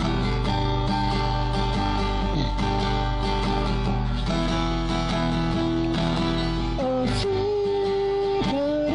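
Music: strummed guitar chords, with a sung or lead melody line coming in about seven seconds in.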